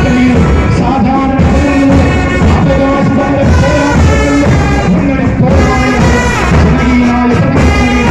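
Marching brass band playing: trumpets and euphoniums carry a tune in held notes over a steady low beat.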